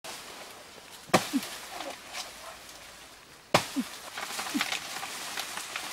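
Two sharp chopping strikes against a banana plant's trunk, about two and a half seconds apart, with leaves rustling faintly between them.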